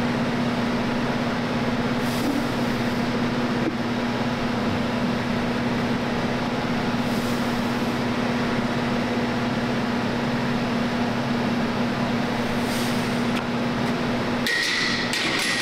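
Steady mechanical ventilation hum with a constant low tone, broken by a few faint knocks. Near the end the hum drops out briefly and a short clatter of knocks follows.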